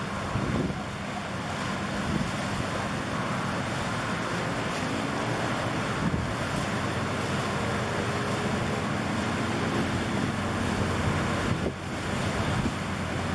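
Wind buffeting the microphone in a steady rush, with a low steady hum underneath.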